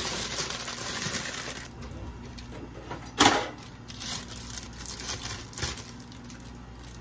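Plastic bag of kale crinkling and rustling as it is handled and opened, with one sharp loud knock about three seconds in.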